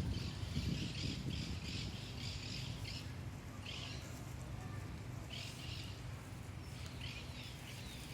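Birds calling: a run of short, rough chirps, several close together in the first three seconds, then single ones every second or two, over a steady low rumble.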